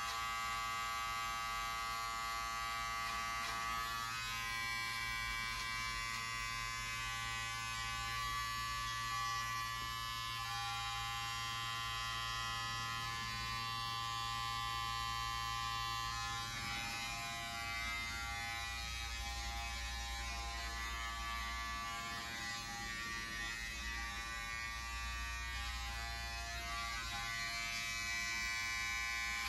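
Electric hair clippers running steadily while trimming hair around the ears, a constant motor hum of many tones.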